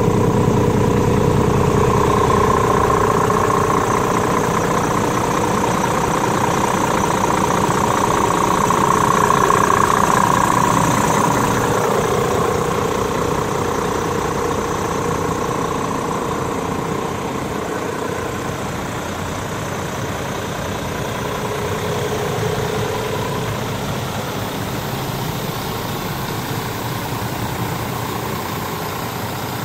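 Scania R450 truck's 13-litre inline-six diesel idling steadily, a little louder about ten seconds in.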